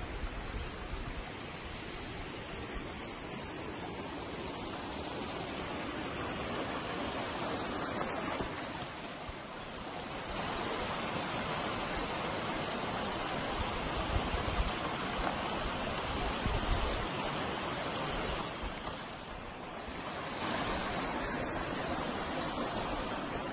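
Shallow stream running over rocks, a steady rushing that dips briefly twice, with a few low rumbles of wind on the microphone.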